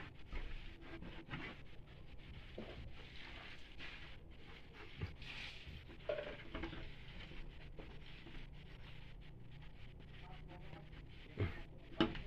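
Scraping, rustling and small knocks against a wooden plank as a hand reaches up to a kitten. A brief faint kitten mew about six seconds in, and two sharp knocks near the end, the loudest sounds.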